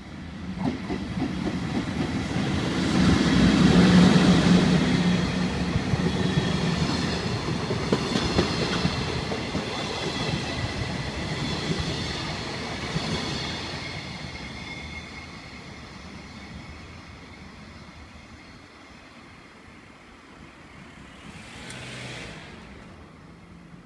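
Freight train hauled by a JNR-liveried EF64 1000-series electric locomotive passing close by. There is a loud low hum as the locomotive goes past about four seconds in. Then come wheels running over the rails and high ringing tones as the flat wagons roll by, and the sound fades away as the train recedes.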